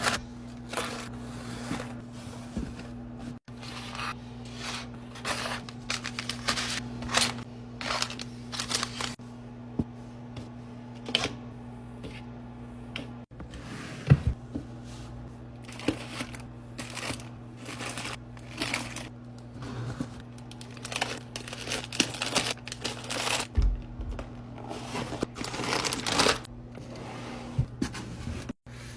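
Restocking handling noises: plastic packaging crinkling and rustling, with repeated short clicks and taps as items and containers are set in place, over a steady low hum.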